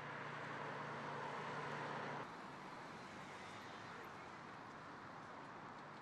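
Steady rushing outdoor background noise with a low hum, cutting off sharply about two seconds in, followed by a fainter steady hiss.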